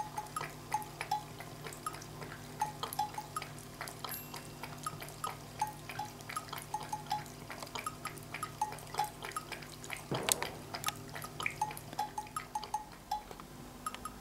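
A cat lapping water from a plastic basin: a steady run of small wet clicks, about three a second, with one louder sudden sound about ten seconds in.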